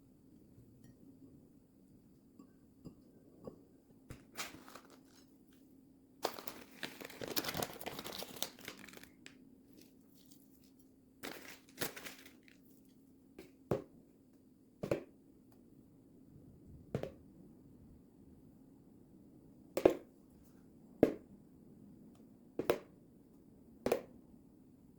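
Crinkling and tearing of wrapping for a few seconds, then a string of short light knocks about one every second or so, over a low steady hum.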